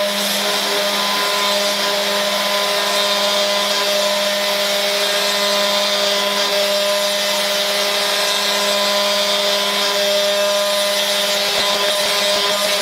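Cron Craft CNC router spindle running at full speed while a double-flute upcut bit mills a circle into a perspex (acrylic) sheet at a low feed rate: a steady hum of several constant tones over a hiss of cutting.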